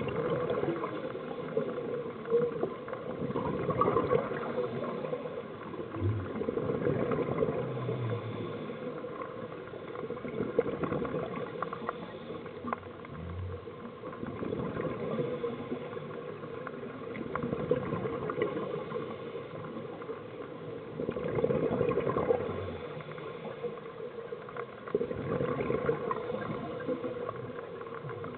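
Scuba diving underwater: exhaled bubbles gurgling from a regulator, swelling and fading every few seconds with the diver's breaths.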